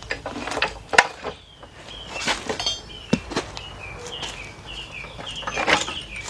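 A few sharp metal knocks and clinks from an automatic transmission being handled on a transmission jack; the loudest comes about a second in. A bird chirps over and over in the background through the second half.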